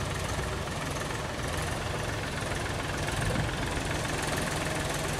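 Farm tractor engine running steadily as the tractor drives through floodwater, with the even rush of water flowing over the road.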